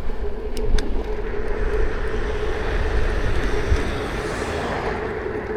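Electric scooter being ridden: a steady motor whine over heavy wind rumble on the microphone and road noise. Two short clicks come less than a second in.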